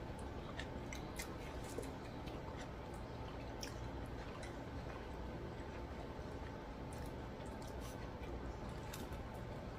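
Soft chewing and small mouth clicks from eating a toasted steak-and-cheese sandwich, with scattered faint crackles of the grilled bread being pulled apart, over a steady low hiss.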